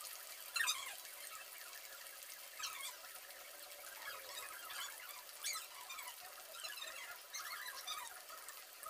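Hot oil deep-frying in a kadai: a faint steady fizz with scattered crackles. A few short high squeaks falling in pitch come through it, about half a second in, near three seconds and again at about five and a half seconds.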